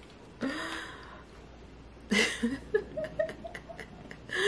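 A woman's breathy exhale, then soft, stifled chuckling in short bursts.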